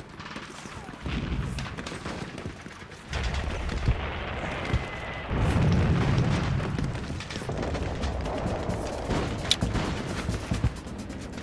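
Battle sound effects: rumbling explosions with scattered gunfire over a music bed. The rumble swells louder about three seconds in and again around five seconds, with a few sharp cracks later.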